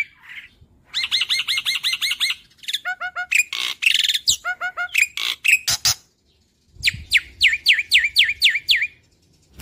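Black-winged myna (jalak putih) singing: fast runs of about eight repeated down-slurred whistles a second, broken in the middle by a burst of varied sharp notes and chatter, with a short pause before the last run.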